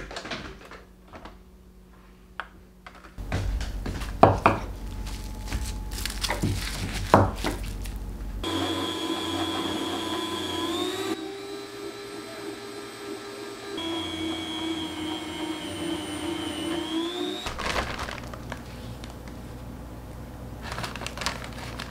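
Electric meat slicer running, its motor giving a steady whine as the spinning circular blade cuts lamb into thin slices; the whine rises a little twice. Knocks and clatter of the meat and slicer being handled come before and after the steady run.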